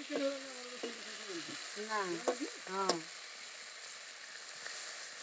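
Trout pieces frying in oil in an iron kadai, with a steady sizzle. A metal spatula stirs and turns them, clinking against the pan a few times.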